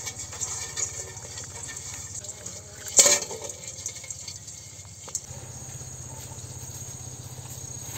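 Crabs' legs scratching and clicking on a stainless steel bowl, with one sharp metallic knock about three seconds in as a crab drops from a PVC pipe into the bowl. A little after five seconds this gives way to a steady low hum.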